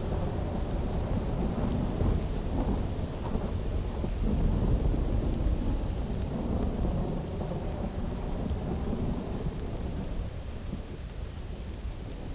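Dense, wet-sounding electronic noise made in FL Studio, strongest in the low end, with no melody or beat. It slowly gets quieter toward the end.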